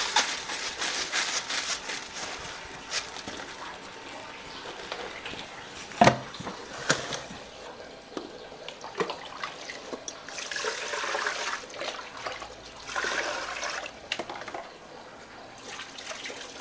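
Dry rice grains pouring from a woven bamboo tray into a plastic bucket, a dense rustling hiss for the first few seconds. A sharp knock about six seconds in. Then water sloshing in short bursts as the rice is rinsed.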